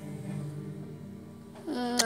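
My Pal Violet plush toy playing an electronic tune through its small speaker, with a brighter, sharper note starting near the end.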